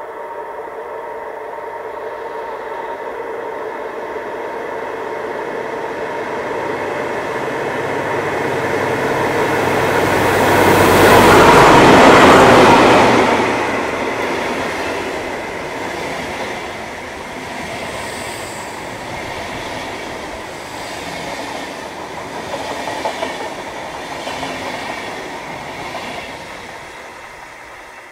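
Diesel locomotive hauling a train of double-deck coaches: its engine note grows louder as it approaches and is loudest as it passes, about twelve seconds in. The coaches then run by with a clickety-clack of wheels on rail joints that slowly fades.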